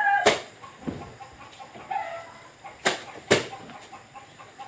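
A rooster's crow breaks off just at the start, then there are a few sharp clicks or knocks and a short chicken cluck about two seconds in.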